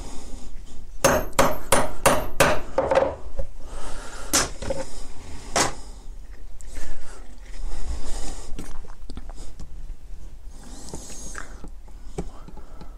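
Small hammer striking a steel hole punch through a drum skin onto a wooden block: a quick run of about seven sharp taps, then two single harder blows, punching the last lacing hole in the skin.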